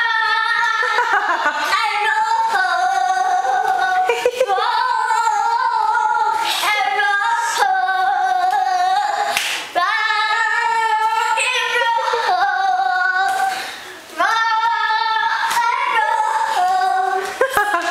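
A young child singing a tune in a high voice, unaccompanied, in phrases with a short break about ten seconds in and a longer dip around fourteen seconds in.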